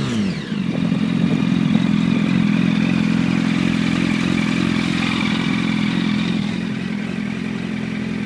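2006 Yamaha R1 inline-four running through a full titanium Arata exhaust, dropping back from a rev in the first half-second and then idling steadily.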